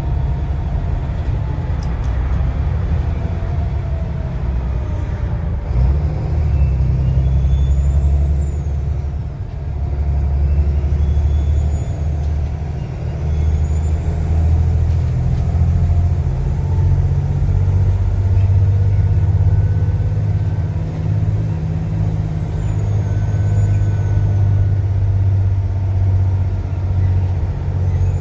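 Volvo B7TL double-decker bus's turbocharged six-cylinder diesel engine running under way, its engine note shifting in steps. Over it a high-pitched turbo whistle rises and falls several times, climbing to a long high whistle through the middle that drops away, then begins to rise again near the end.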